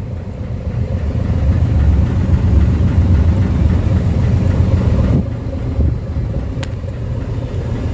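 Hino 500 truck's diesel engine idling, heard from inside the cab as a steady low rumble. A single sharp click sounds about six and a half seconds in.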